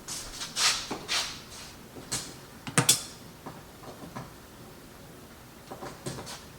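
Handling noises: rustling and brushing, then a sharp double click about three seconds in and a few soft knocks near the end. There is no motor running.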